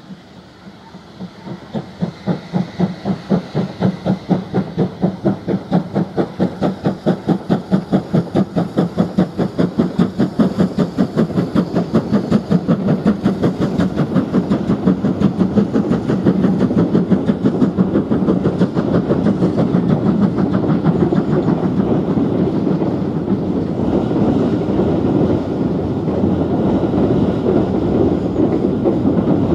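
GWR 5600 class 0-6-2 tank engine No. 5619 working a train under steam: rapid, regular exhaust beats grow louder as it approaches and passes. Over the last third the steady rolling and clickety-clack of its coaches' wheels crossing the bridge takes over.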